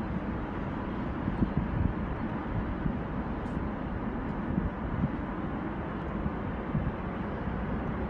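Steady rumble of road traffic, trucks among it, crossing a highway bridge, with uneven low buffeting of wind on the microphone.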